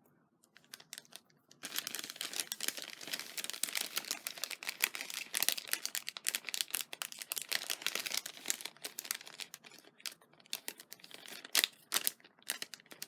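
Plastic bag crinkling and crackling as small paper die cuts are handled and pulled out of it. The crackle starts about a second and a half in, runs densely, and thins to scattered crackles near the end.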